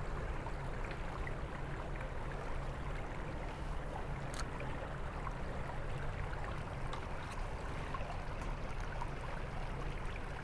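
Steady rushing of a small stream flowing past, with a few faint ticks and one sharper click about four seconds in.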